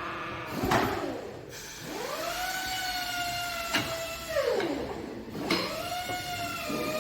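An electric motor whining. Its pitch sweeps up as it spins up, holds steady, drops away as it slows about four and a half seconds in, then winds up again and holds. A brief clatter comes near the start, and a sharp click comes just before the first drop.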